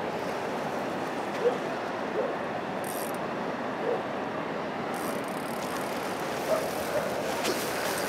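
Steady rush of flowing river water, with a few faint short sounds on top.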